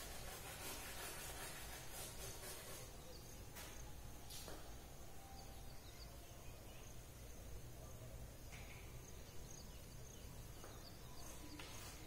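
Faint scratching of chalk rubbed on a blackboard in shading strokes, busiest in the first three seconds and again near the end, over a steady background hiss and a thin high tone.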